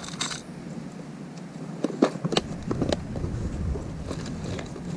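Handling noise while changing fishing lures: a cluster of short clicks and knocks of tackle being handled about two seconds in, over a low rumble of wind on the microphone.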